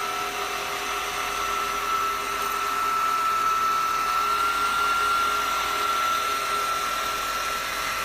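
Nuna Ultimate 7 cordless floor cleaner running on carpet: a steady motor whine over an even rush of suction, the whine edging slightly higher in pitch midway and settling back.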